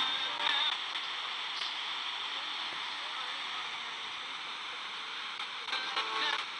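Steady radio static hiss in place of the newscast, as though the station's signal has faded out. Brief broken fragments of the announcer's voice come through at the start and again near the end.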